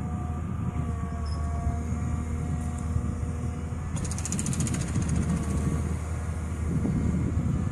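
Volvo EW160 wheeled excavator's diesel engine running under load with a steady whine as the boom lowers the Herder mowing basket into the ditch. About four seconds in a fast, high rattle comes in as the mowing basket meets the ditch bank, fading after a second or two.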